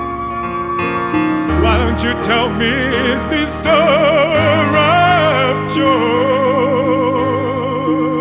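Background music: a slow song in an instrumental stretch, with a wordless, opera-like vocal line sung with wide vibrato over sustained chords.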